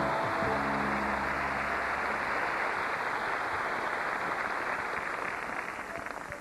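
Large audience applauding, with the band's play-on music stopping about two and a half seconds in. The applause dies away near the end.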